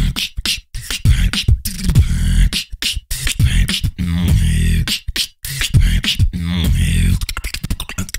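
Live vocal beatboxing into a close microphone: deep buzzing bass tones under sharp kick- and snare-like mouth clicks, in fast rhythmic patterns broken by a few brief pauses.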